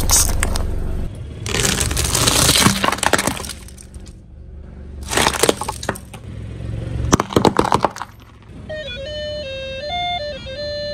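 Car tyres rolling over and crushing crunchy objects: several bursts of cracking and crunching over a low rumble. A short electronic jingle melody plays near the end.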